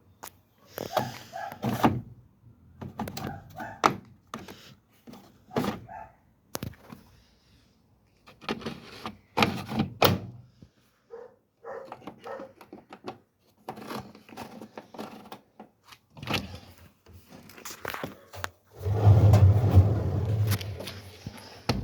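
Repeated knocks and clunks from a scrap Bosch washing machine being handled, with short barks among them in the first few seconds. Near the end comes a loud low rumble lasting about two seconds.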